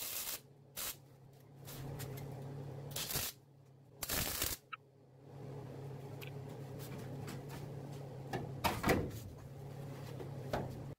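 Low steady electrical hum that cuts out and back in several times, with faint handling knocks and scrapes and a brief clatter about nine seconds in.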